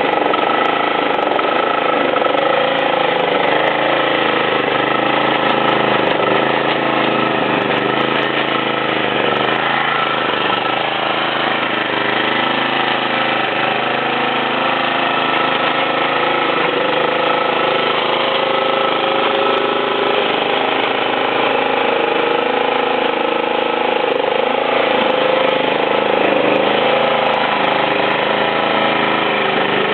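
Exmark walk-behind lawnmower engine running at a steady speed.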